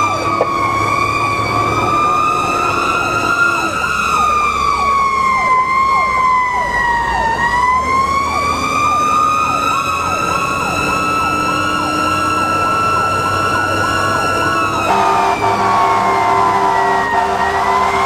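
Fire engine's electronic siren (a Federal Signal PowerCall) wailing, heard from inside the cab, its pitch climbing and falling slowly, twice over. About 15 s in a steady air-horn blast joins it for around four seconds.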